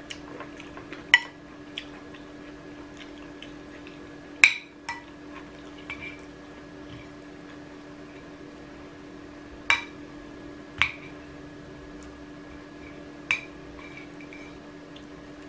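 Metal spoon and fork clinking and scraping against a ceramic plate while eating, a handful of sharp clinks a few seconds apart.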